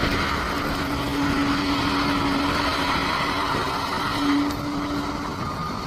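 Bulldozer diesel engine running steadily under load, with a steady whine that drops out about halfway through and comes back briefly near the end.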